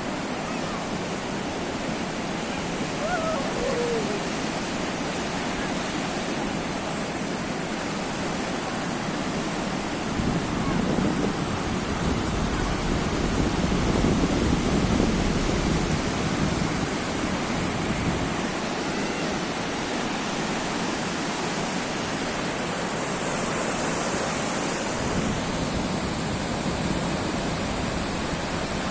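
Sea waves washing onto the shore: a steady rush of surf that swells louder in the middle and eases off again.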